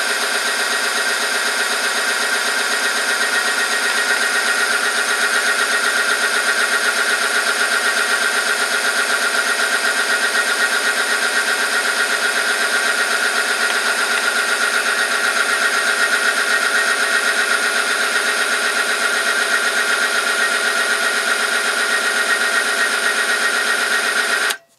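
Oil film strength test machine running under load: the electric motor turns a roller rubbing against a weighted test sample in hot engine oil, making a loud, steady whine with many tones. It cuts off suddenly near the end when the power is switched off.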